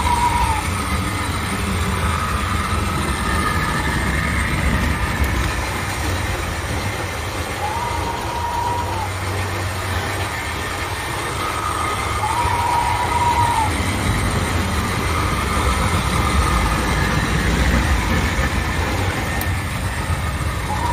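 A train running with a steady low rumble, with brief high-pitched tones about a second long sounding every few seconds.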